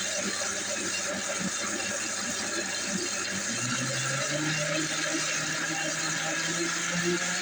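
Vitamix blender running, blending soaked yellow split peas with almond milk into a smooth batter. The motor hum rises in pitch about halfway through.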